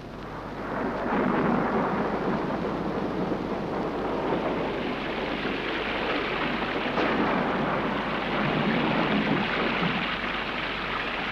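Thunderstorm: heavy rain pouring with thunder rumbling, swelling in over the first second and then holding steady.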